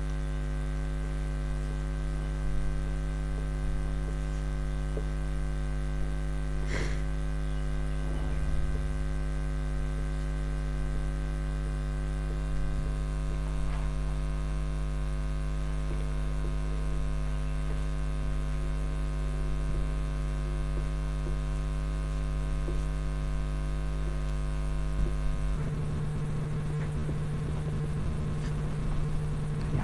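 Steady electrical mains hum, a low buzz with many even overtones. About 25 seconds in it changes suddenly to a rougher, noisier hum. A single short tick sounds about 7 seconds in.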